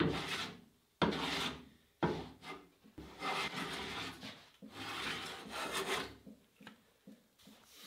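Metal hand plane taking repeated strokes along the edge of a wooden table rail, peeling off shavings: about six strokes, roughly one a second, each starting sharply.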